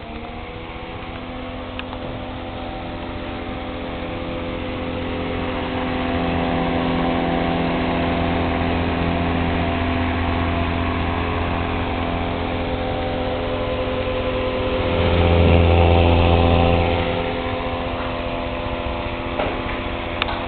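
Vintage 1930 GEC electric desk fan running, freshly cleaned and lubricated: its motor finishes spinning up about a second in and settles into a steady hum with the whoosh of the blades. The hum swells louder about three-quarters of the way through, then eases back.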